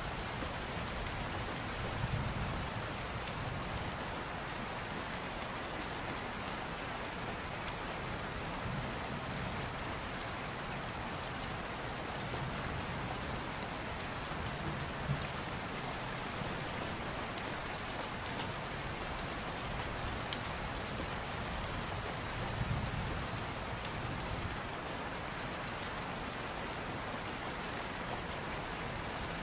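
Steady rain: an even hiss with light patter, and a couple of soft low thumps.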